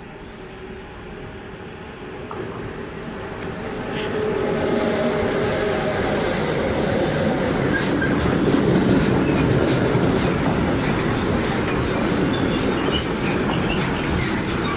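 Electric-hauled freight train passing close by, growing louder over the first four seconds as the locomotive nears. Its sliding-wall covered wagons then roll past steadily, with wheel clatter and high wheel squeaks near the end.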